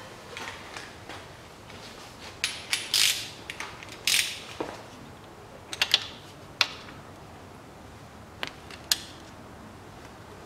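Ratchet wrench clicking in several short bursts as it tightens the fill-and-level plug on a manual gearbox after an oil refill.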